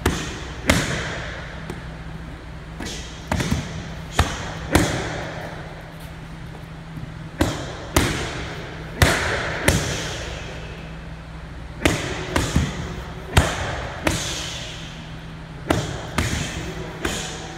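Punches and front kicks landing on handheld focus mitts: sharp slaps in clusters of two or three, more than a dozen in all, each ringing briefly in a large echoing gym.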